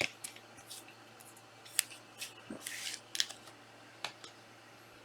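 Trading cards being handled at a table: several light, sharp clicks and a short sliding rustle about two and a half seconds in.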